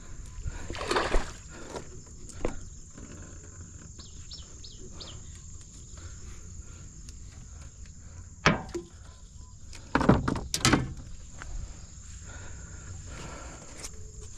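Steady high-pitched chorus of insects, with a low background rumble and a few sudden louder knocks or rustles, the loudest about ten seconds in.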